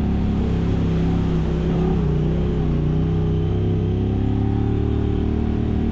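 Side-by-side UTV engine running steadily on a trail ride, its pitch wavering slightly about two seconds in.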